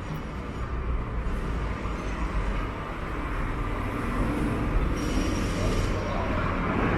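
City street traffic, with a heavy vehicle's low engine rumble growing gradually louder.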